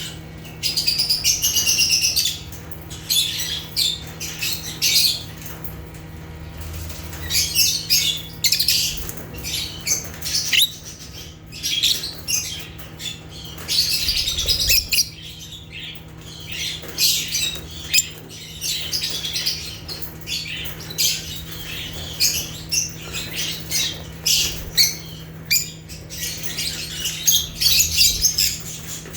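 A flock of lovebirds (Agapornis) chattering in shrill, high-pitched chirps and squawks, in rapid clusters broken by short pauses.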